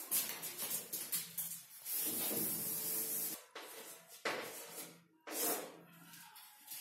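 Chalkboard being wiped with a duster: a run of rubbing, hissing swipes across the board, one of them longer about two seconds in.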